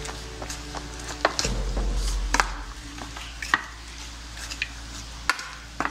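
Metal fork stirring and mashing thick banana batter of mashed saba banana and flour in a bowl, with squelching and scraping and a few sharp clicks where the fork strikes the bowl.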